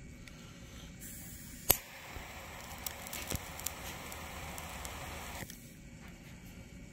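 Handheld gas torch: gas starts hissing, a sharp igniter click follows (the loudest sound), then the flame hisses steadily for about four seconds and cuts off suddenly. Several crackles and pops come through the flame as the engorged tick is singed.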